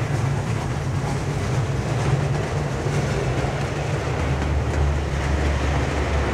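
Model freight train wagons rolling along the layout's track: a steady low rumble and hum, dropping lower in pitch about four seconds in as the last wagon passes.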